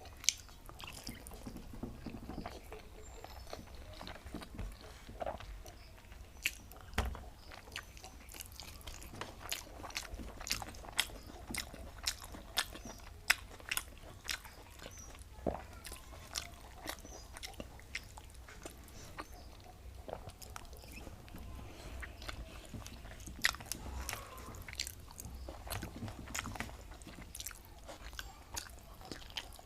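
Close-up eating sounds: a person chewing and smacking a mouthful of rice with cauliflower and papaya curry, with many short, sharp mouth clicks at irregular intervals.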